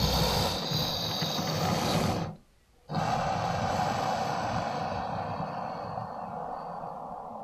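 Sound-effect roar of a gorgonopsid creature: a long growling roar that stops about two seconds in, then after a half-second break a second long growl that slowly fades.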